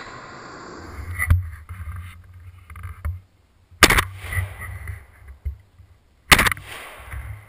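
A shotgun fired three times, about two and a half seconds apart, heard from a camera mounted on the gun itself, with a low rumble of handling noise between the shots.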